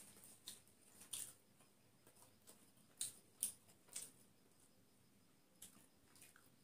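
Quiet mouth sounds of someone eating biryani by hand: a scatter of soft, short smacks and chews, the loudest a few seconds in.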